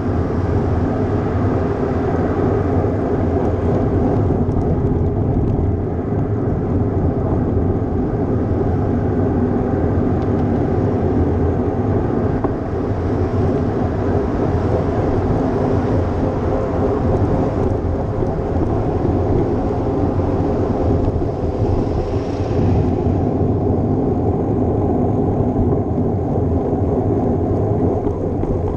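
Steady low rumble of wind buffeting a GoPro microphone on a moving bicycle, mixed with road noise.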